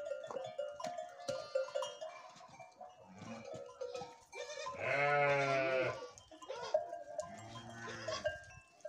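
Flock of sheep bleating, with one loud, wavering bleat about five seconds in, a fainter one near the end, and many smaller calls between.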